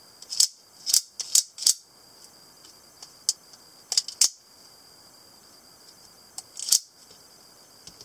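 Out-the-front automatic spring knife with a double-edged blade, its thumb slider firing the blade out and pulling it back, giving a series of sharp metallic clicks in several quick clusters.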